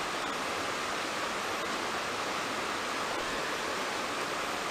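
Steady rushing of a small river flowing over rocks.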